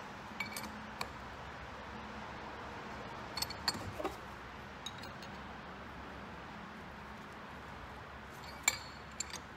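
Scattered light metallic clicks and clinks of a wrench working on a fitting as an adjustable hydraulic line fitting is snugged into a SeaStar hydraulic steering helm. The clicks come in small clusters: near the start, around four seconds in and near the end, over a faint steady hum.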